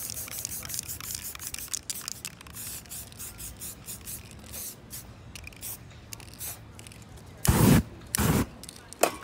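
Fingertip rubbing and scratching over painted poster paper in many short strokes, then near the end two loud whooshes of aerosol spray paint lit into a flame, followed by a shorter third one.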